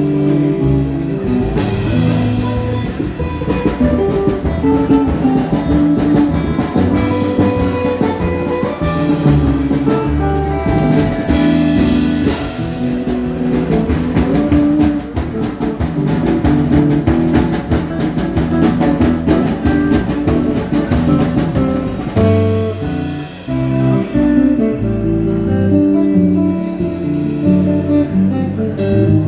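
A jazz trio playing, with a guitar carrying the melody over a drum kit; the cymbals drop back about three-quarters of the way through.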